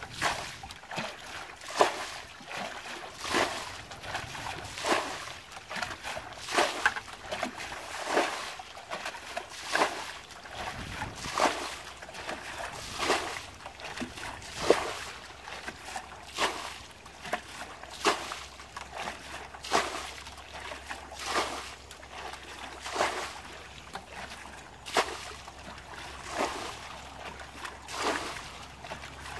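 A bucket scooping up muddy water in a shallow stream and flinging it out over the bank in splashes, one stroke about every second and a half: water being bailed out by hand.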